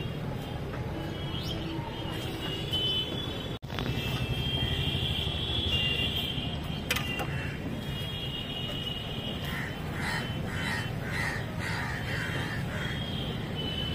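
Crows cawing in a run of harsh calls in the second half, about two to three a second, over a steady low background rumble.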